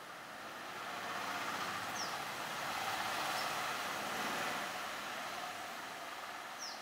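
A vehicle passing by: a steady rush of noise that swells over a few seconds and then fades. A single short, high, falling chirp sounds about two seconds in.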